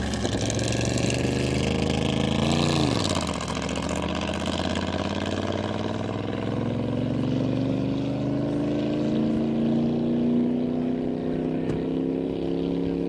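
Land-speed racing engine running hard: its note rises and drops sharply about three seconds in, then climbs slowly and steadily as the vehicle accelerates for the rest of the time.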